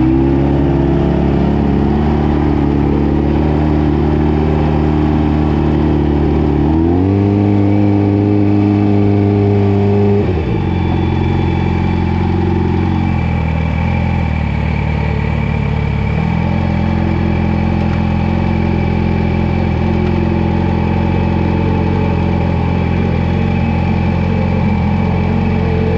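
Sport bike engine running at low, steady revs. The revs step up about a third of the way in, drop away sharply a few seconds later, then hold a lower steady note before starting to climb again right at the end.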